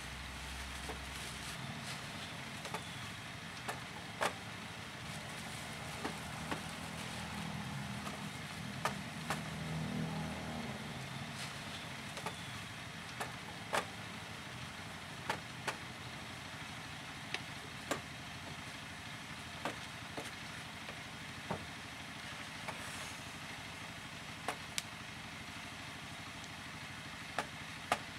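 Steady hiss with scattered sharp clicks, one or two every couple of seconds, and a low engine-like hum that swells and fades about ten seconds in.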